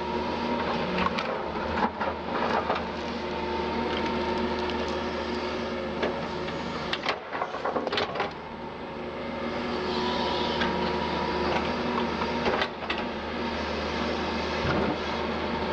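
Doosan DX180 LC excavator running steadily, its diesel engine humming under a steady hydraulic whine, with scattered knocks and clicks, a cluster of them around the middle.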